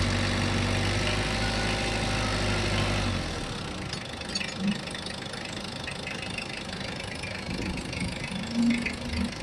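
Mitsubishi Adventure diesel engine running at idle with a slight misfire, a sign of air in the injection pump or fuel lines. About three seconds in, the steady low hum drops away and a quieter, rougher engine sound goes on.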